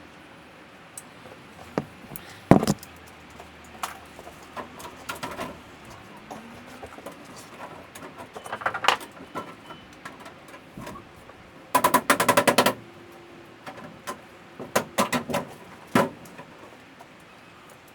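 Scattered knocks and clicks of hand work with tools and materials, with a fast rattle of about a second near the middle.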